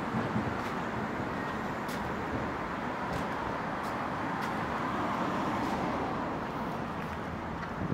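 Road traffic: a steady wash of passing vehicles, a little louder around five seconds in.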